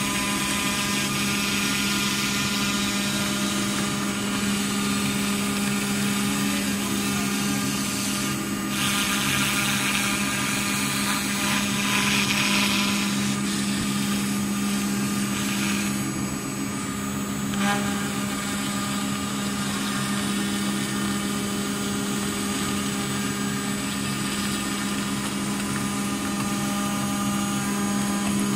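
CNC router's water-cooled spindle milling aluminium sheet: a steady machine hum with fixed whining tones and the hiss of the end mill cutting the metal. The cutting hiss swells for a few seconds about a third of the way through.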